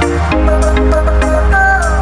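Background music: electronic track with sustained synth notes, a deep bass line and a regular beat.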